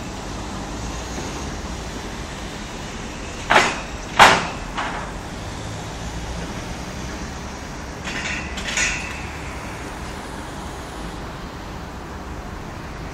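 Steady outdoor background noise, broken by three sharp knocks or bangs about three and a half to five seconds in, the middle one the loudest, and two softer ones at around eight to nine seconds.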